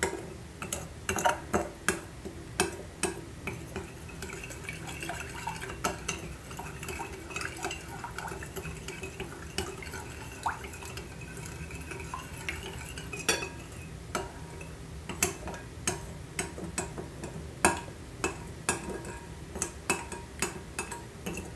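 Metal spoon stirring lukewarm water in a glass bowl, clinking irregularly against the glass, to dissolve yeast, sugar and salt for a donut dough. The clinks come thickest near the start and in the last few seconds, sparser in between.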